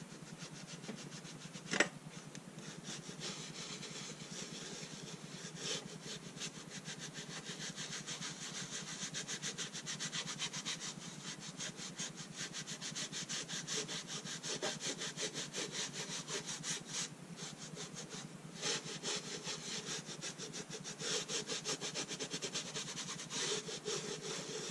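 A hand-held abrasive pad rubbing rust and old paint off a tin box lid in quick back-and-forth strokes, a steady scratchy scraping. One sharp tap about two seconds in.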